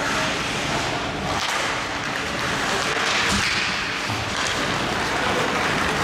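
Ice hockey play: skate blades scraping the ice and sticks clacking over a steady hiss of arena noise, with a sharper knock about three seconds in.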